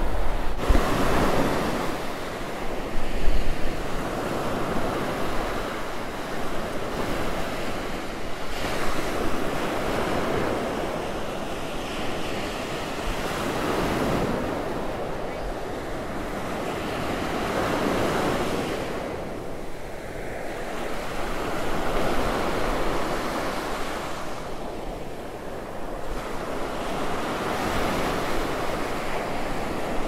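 Ocean surf breaking and washing up a sandy beach, swelling and fading every few seconds. A few low gusts of wind rumble on the microphone in the first seconds.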